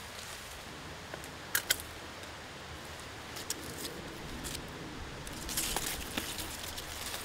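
Quiet rustling with a few short sharp clicks: two close together about a second and a half in, and a busier patch of rustling and clicks near the end.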